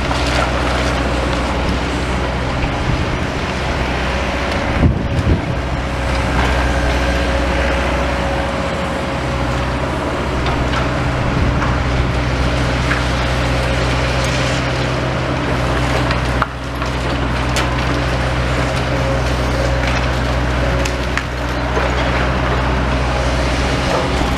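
Demolition excavator's diesel engine running steadily while timber and rubble crunch and splinter as part of the building comes down. There are a couple of sharp knocks about five seconds in.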